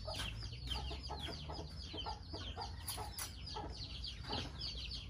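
Many birds chirping: short, falling high chirps overlapping several times a second, over a faint steady low hum.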